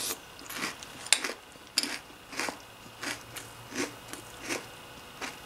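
A person chewing a mouthful of PJ Masks cereal in milk, crunchy, with a crunch about every two-thirds of a second.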